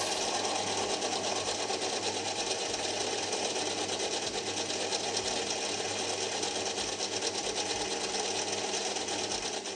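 Metal lathe running steadily, taking a light cut on a large chunk of 4140 steel stock.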